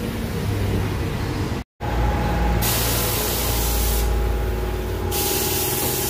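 Compressed air hissing in two long bursts of about a second each at a tyre changer, over a steady low machine hum and a thin whine. A brief drop-out a little under two seconds in breaks the sound.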